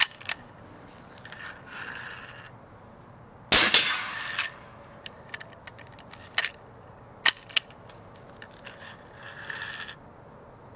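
Homemade .50 caliber compressed-air QEV cannon firing once about three and a half seconds in: a loud, sharp blast with a second crack right after it. Several sharp metallic clicks and a little faint hissing come from the gun being handled between shots.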